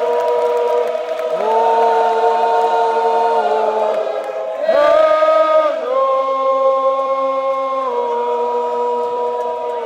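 Sousaphone section playing a slow brass fanfare of long held chords, moving to a new chord every one to two seconds. The loudest, highest chord comes about five seconds in.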